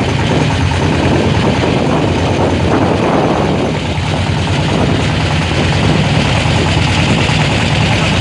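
Engine of a small river boat running steadily under way, a fast even chugging with a steady hiss of water and wind over it.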